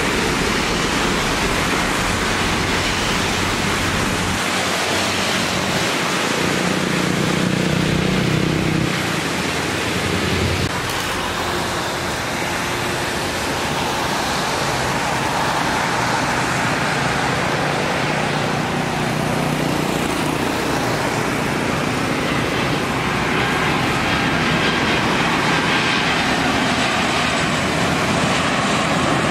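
Steady rush of heavy rain mixed with the rumble of jet airliner engines from planes landing in the downpour.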